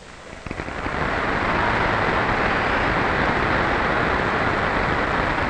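Large convention-hall crowd applauding and cheering, swelling up about half a second in and then holding steady.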